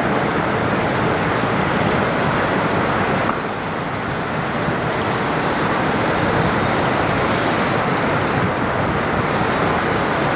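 Steady wind on the microphone mixed with lake waves washing against a rocky shore, an even rushing noise that drops slightly about three seconds in.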